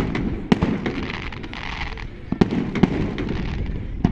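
Fireworks display: shells bursting with sharp bangs, about five in four seconds, with a crackling hiss between them.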